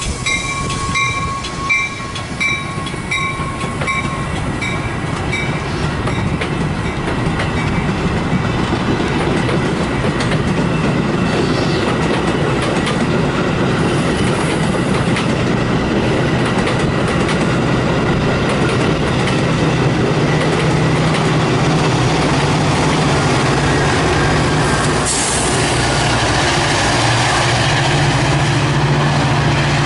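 Metra bilevel commuter train passing close, its wheels rumbling and clacking over the rail joints and growing louder. The diesel engines of its two F40PH-type locomotives come in as a steady low drone over the last third, with a brief hiss about 25 seconds in. A crossing bell rings rhythmically at the start and stops after about four seconds.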